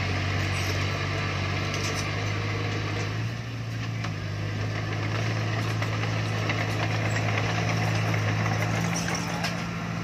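Heavy construction machine's diesel engine running steadily, its pitch stepping up slightly about three seconds in.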